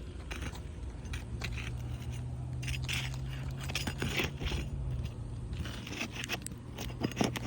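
Old asphalt roof shingles being pried up and unsealed to get at the nails: irregular scraping and crackling strokes with a few sharp clicks. A steady low hum runs underneath from about a second in.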